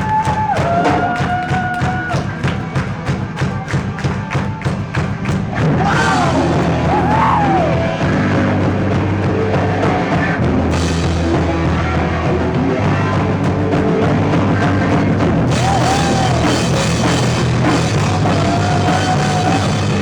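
A rock band playing live, with a drum kit keeping a steady beat under a held melodic lead line; about six seconds in, the full band comes in heavier and denser.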